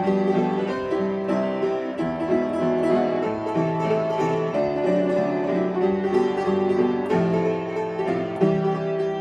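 Upright piano played solo, a melody over chords with the notes changing continually.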